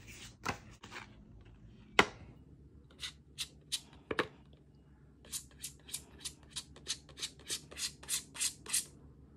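Metal palette knife tapping and scraping paint onto a paper paint-chip card. There is a sharp tap about two seconds in, then a run of short scratchy strokes, three to four a second, that gets louder near the end.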